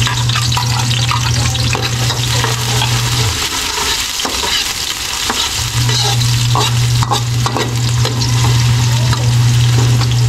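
Chopped garlic and onion sizzling and crackling in hot oil in a wok, with a metal ladle scraping and stirring against the pan. Beneath it runs a steady low hum that drops out for about two seconds in the middle.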